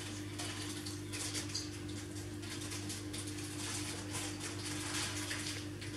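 Hands rolling a soft sponge cake along a cotton tea towel: faint, soft rustling now and then, over a steady low hum.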